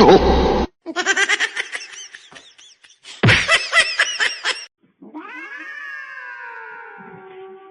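Domestic cat calling: a short loud burst, then two runs of quick warbling calls, then one long yowl that slides down in pitch.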